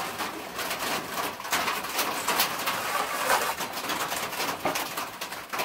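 Irregular rustling with light knocks of footsteps and handling close to the microphone, with no engine running.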